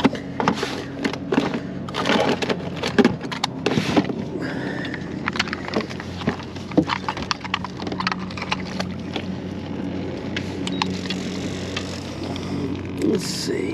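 Irregular knocks, clicks and clatter of gear being handled on a boat: a console drawer searched, and a digital fish scale and lip grippers handled and hooked onto a catfish. The knocks are thickest in the first half, over a steady low hum.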